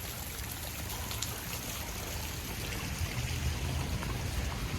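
Outdoor fountain water running and splashing steadily, over a low rumble.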